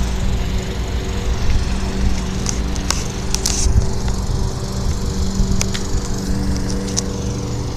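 An engine runs with a steady drone, with a few sharp clicks over it, some close together.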